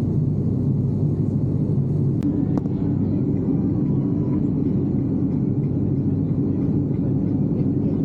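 Steady drone of a turboprop airliner's engine and propeller heard inside the cabin, a low hum with several steady tones over a rumble. About two seconds in, the hum shifts to a higher pitch.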